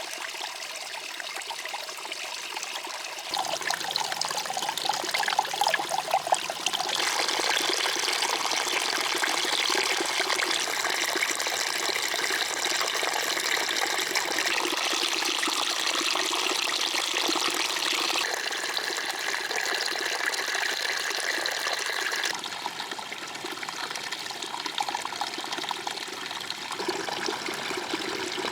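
Running water, a steady rushing and trickling like a stream. Its character and loudness change abruptly several times.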